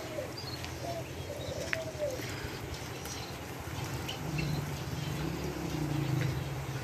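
Doves cooing with small birds chirping, in low curved calls over the first two seconds. A low steady hum comes in about four seconds in and grows louder.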